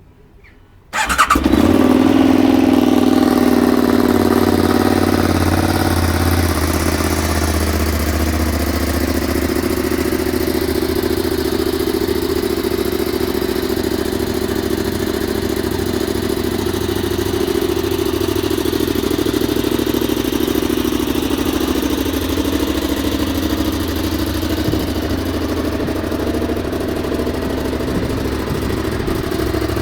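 KTM 990 SuperDuke's 1000 cc 75° LC8 V-twin started about a second in, then idling steadily.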